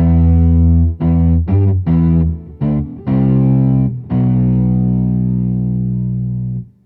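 Overdriven electric guitar through an Ibanez TSA15H tube amp head, with an octave-down pedal adding a deep low end, playing a riff: a held chord, a run of short choppy notes, then a long chord that rings out and cuts off near the end.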